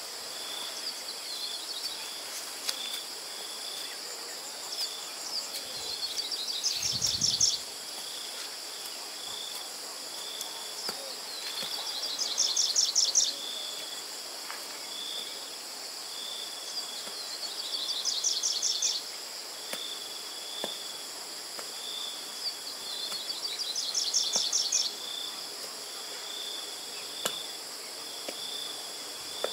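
Insects chirring in chorus: a steady high drone with a regular chirp about once a second. Four times, about six seconds apart, a louder buzzing phrase swells and then cuts off sharply.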